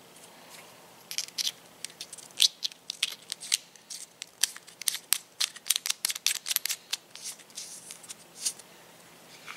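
An NC Star 1x30 red dot sight being handled: a run of sharp, irregular clicks and scrapes as fingers work its knurled knobs, caps and metal body. It starts about a second in and stops near the end.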